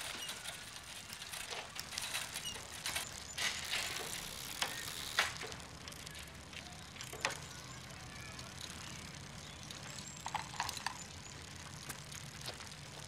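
A bicycle riding on pavement, with irregular clicks and rattles from the bike, busiest in the first half. A few more scattered clicks come near the end.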